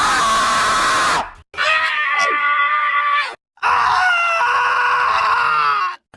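A run of angry cartoon-character screams, one after another, each about two seconds long and cut off abruptly before the next begins.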